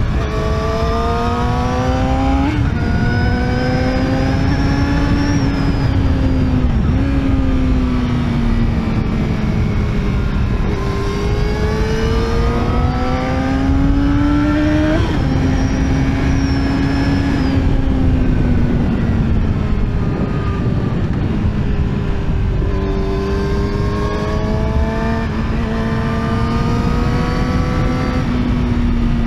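Yamaha YZF-R6 inline-four engine pulling hard through the gears, its pitch climbing and then dropping sharply at each upshift (three times), easing off for a few seconds in the middle before a quick jump in revs. Steady wind noise on the microphone runs underneath.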